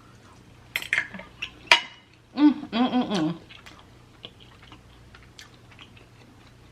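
Sharp clicks and clatter of utensils and crab shell against dishes while eating, the loudest about two seconds in. Between them comes a short wordless hum in two parts, like an 'mm-mm' of enjoyment.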